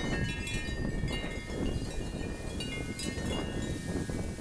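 Chimes ringing: many overlapping high bell-like tones over a steady low rushing noise.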